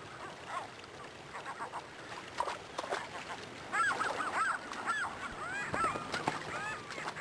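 Gulls calling again and again, short cries that rise and fall in pitch. The calls are few at first and become many and overlapping from about halfway in.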